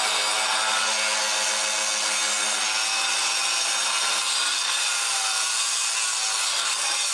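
Angle grinder cutting into a roof tile: a steady whine over an even grinding hiss, held without a break. The tile is being ground to fit over a solar-panel mounting tile hook.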